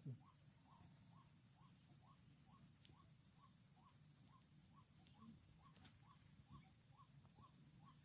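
Near silence outdoors, with a faint animal call: a short upward-sliding note repeated evenly about twice a second, over a steady thin high-pitched tone.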